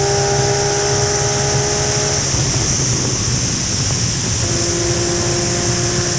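Sport motorcycle cruising at steady highway speed, heard through heavy wind noise on the microphone. A steady engine hum fades a little past two seconds in and returns at a slightly lower pitch near the end.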